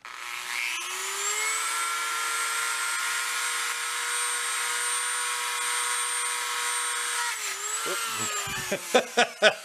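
A Dremel rotary tool with a small metal wire brush spins up to speed and runs with a steady high whine while scrubbing inside a winch motor's end cap. Its pitch wavers briefly under load and then winds down and stops about eight seconds in.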